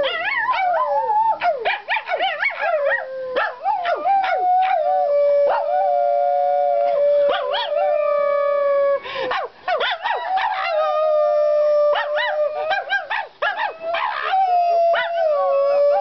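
A woman and a dog howling together: long held howling notes, with shorter wavering yips and glides over them. The held notes break off briefly twice and start up again.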